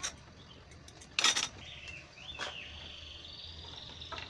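Handling noise from assembling a portable rack of metal rods and pink panels: a knock, then a loud brief rustle-clatter about a second in as a panel and rod are picked up. From about two seconds in, a high, steady chirping trill carries on in the background.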